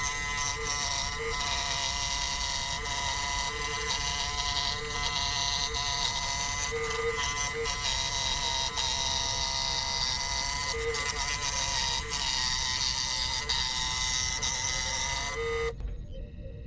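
Scroll saw running steadily while cutting a wooden panel: a constant mechanical buzz with a fixed high tone. It stops abruptly near the end.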